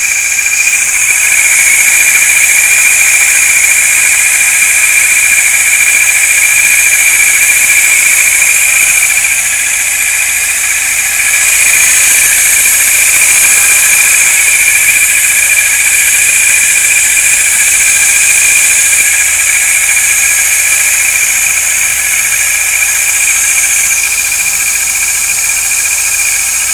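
Abnormal noise from a TC24's alternator with the engine running: a steady high-pitched whine over a loud hiss.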